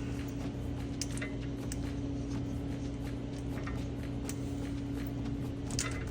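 Steady low hum with a few faint, irregular clicks as a clamp is screwed down, pressing a rear brake caliper piston back into its bore.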